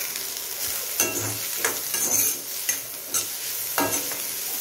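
Chopped onions frying in oil in a kadhai, sizzling steadily, while a spoon stirs them and scrapes the pan about every half second.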